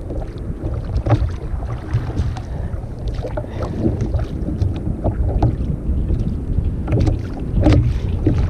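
Wind rumbling on the microphone, with short irregular splashes and knocks of water against a sit-on-top kayak's hull.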